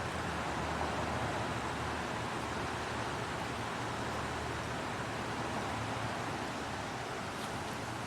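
A flooded creek's water rushing past in a steady, even roar.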